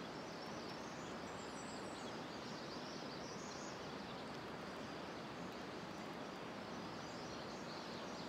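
Steady rush of a fast-flowing river's current and rapids, with a few faint bird chirps.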